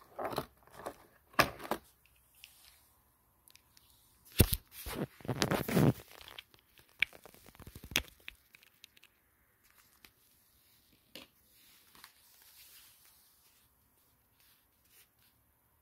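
Plastic packaging and tissue paper being handled: rustling, crinkling and tearing, with scattered clicks and knocks. The loudest bursts come about four to six seconds in, then only a few faint clicks.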